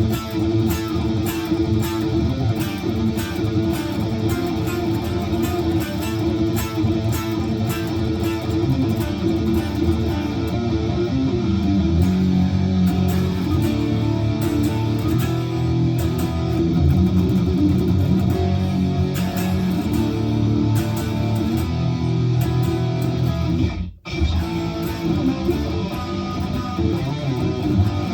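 Strandberg Boden Essential 6 electric guitar played continuously through a Headrush Gigboard amp modeller on a heavier, higher-gain patch. The playing stops for a moment about three-quarters of the way through, then resumes.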